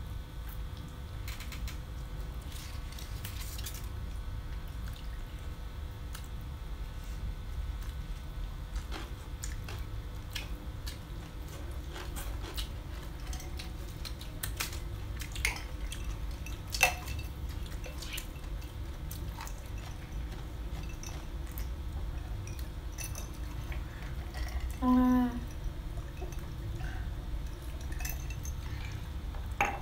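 Close-up eating sounds at a table: scattered clicks of bowls and utensils and mouth sounds over a steady low hum, with a sharp click about 17 s in. A short pitched sound near the end is the loudest moment.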